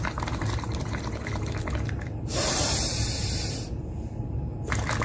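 Bubbling as breath is blown out through a drinking straw into a glass of water, a breathing exercise. The bubbling stops a little over two seconds in for a loud hiss of breath, then starts again near the end.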